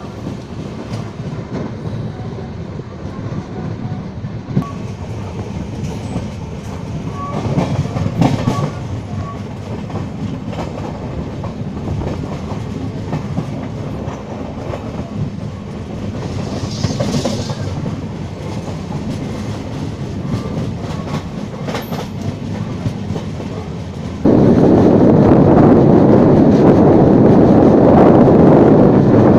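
LHB passenger coach running at speed, its wheels rumbling on the rails with the clickety-clack of rail joints and points, heard from the open doorway. About 24 seconds in, loud wind buffeting the microphone suddenly takes over.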